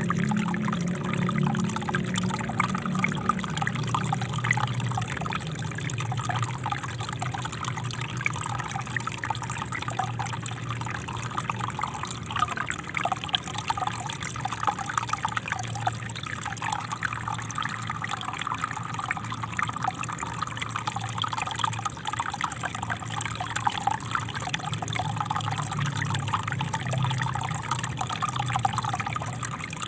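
Small river flowing: a steady rush of water with many small splashes and trickles, unchanging throughout.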